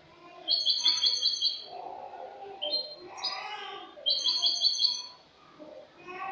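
European goldfinch singing its own clean song (cante limpio): fast twittering phrases built of rapid repeated high notes, one burst about half a second in and another about four seconds in, with a short pause shortly after five seconds.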